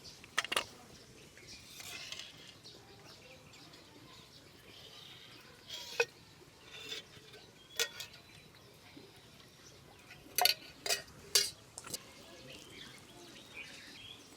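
Kitchen utensils clinking and knocking against each other: a handful of sharp, ringing clinks, three of them in quick succession near the end.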